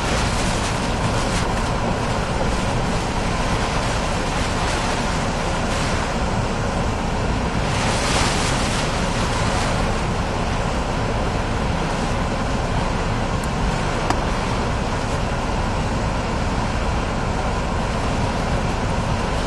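Hurricane-force wind and wind-driven rain blowing steadily, with a stronger gust about eight seconds in.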